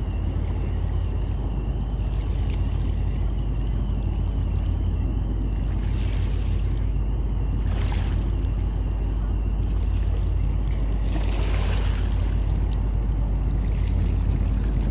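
Steady low rumble of a passing car ferry under way across calm water. A brief rushing hiss swells up twice, around a third of the way in and again past the middle.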